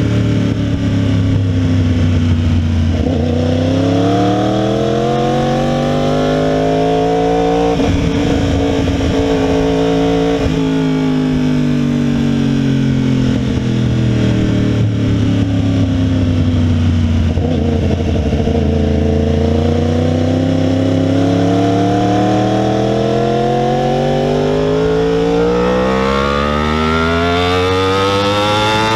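2016 Yamaha R1's crossplane inline-four, with a cat-delete exhaust, under hard riding on track. The engine note drops in the first few seconds, climbs, breaks briefly about eight seconds in, sinks slowly, then rises again and climbs steeply near the end under full acceleration.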